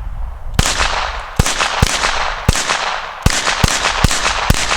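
.22 LR semi-automatic pistol fired eight times in quick succession at uneven gaps, each a sharp crack that trails off briefly.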